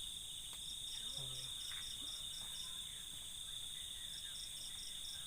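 Insect chorus: a steady high chirring, with a second insect's pulsed chirp repeating about four times a second in runs that start and stop.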